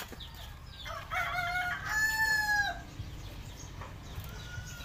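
A rooster crowing once, starting about a second in and ending in a long held note, with a fainter call near the end.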